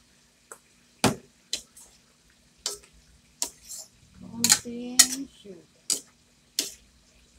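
Metal spatula knocking and scraping against a steel wok while stir-frying vegetables in sauce: a series of sharp clanks, roughly one a second.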